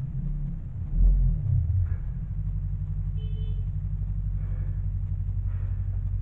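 Low, steady rumbling drone, with a deep thud about a second in and a brief high tone near the middle.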